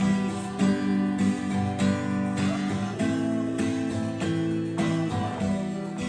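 Acoustic guitar strummed in a steady rhythm at a brisk tempo, with the chord changing every second or two. No singing.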